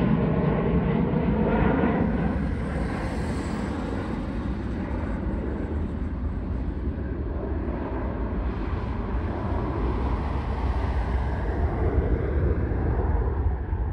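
Twin-engine jet airliner climbing away after takeoff, its engine noise fading over the first few seconds into a steady, distant rumble.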